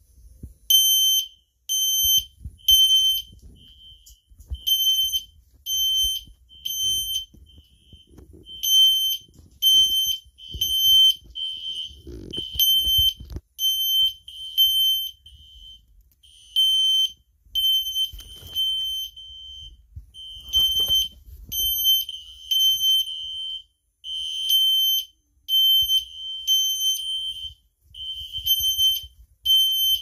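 Fire alarm horns sounding the temporal-3 evacuation pattern: three high-pitched beeps, a pause, then again, repeating steadily. Fainter beeps fill some of the pauses.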